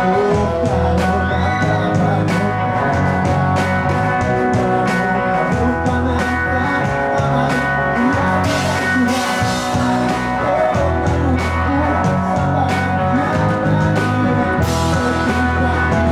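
Live band music played loud, with a steady drum beat under sustained chords and a pulsing bass line.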